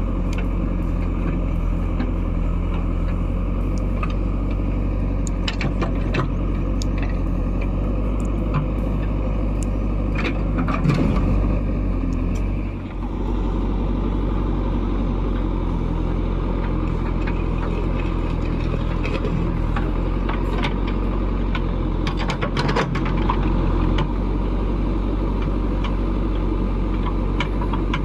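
Backhoe loader's diesel engine running steadily as it digs a trench, with scattered knocks and clanks of the bucket working the soil, loudest about ten to eleven seconds in and again around twenty-two seconds.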